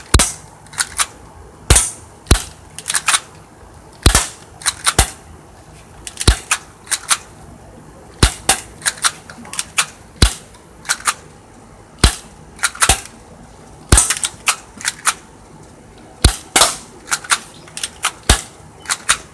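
Airsoft guns firing at targets: dozens of sharp, short shots at an irregular pace, often two or three in quick succession.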